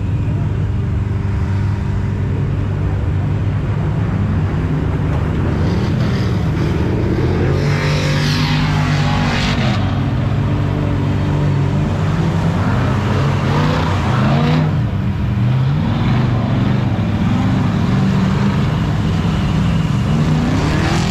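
Off-road trucks' engines revving in a mud pit, the pitch climbing and falling several times. A few spells of hissing splatter come from spinning tyres throwing mud and water.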